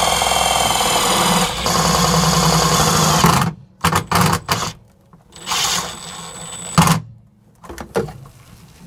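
Cordless drill driving self-tapping screws up into the underside of the van floor: one long run of about three and a half seconds, its whine dropping in pitch partway through, then a few shorter bursts.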